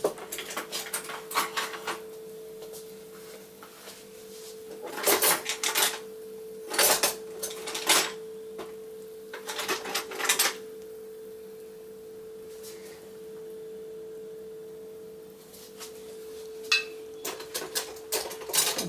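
Metal kitchen utensils clinking and knocking as they are rummaged for and handled, in several separate bursts, over a steady hum.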